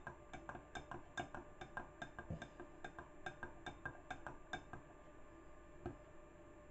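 A spoon clinking against the side of a measuring jug as melted soap is stirred: quick light clinks about five a second, growing sparser near the end.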